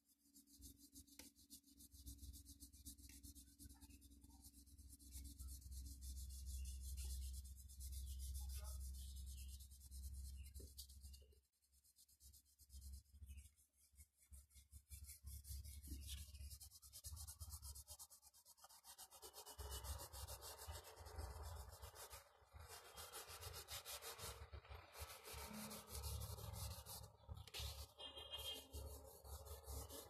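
Faint rubbing and scratching of a crayon shading back and forth on paper, a little louder and brighter in the last third.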